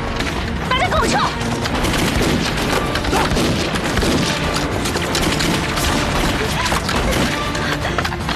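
Battle sound effects of rifle gunfire and explosions, with many shots and blasts in quick succession over background music, and some shouting.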